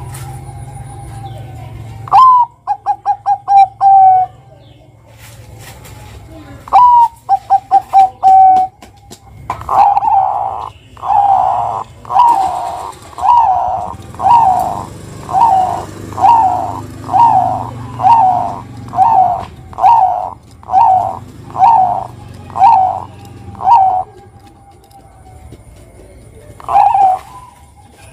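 Zebra dove (perkutut) cooing. Twice, a rising note leads into a quick run of short staccato coos. Then comes a long, even series of about fifteen coos, roughly one every second, and a single phrase near the end.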